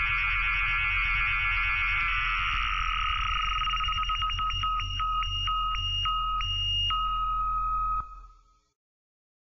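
Electronic music sting: steady high synth tones over a pulsing bass, breaking into a stuttering on-off pattern, then cutting off about eight seconds in, followed by silence.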